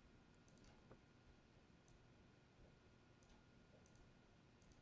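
Near silence, with faint computer mouse clicks now and then, some in quick pairs.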